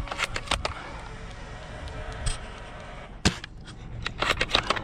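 Airsoft gunfire: a scatter of sharp cracks and clicks, with one loud shot a little over three seconds in and a quick run of shots near the end.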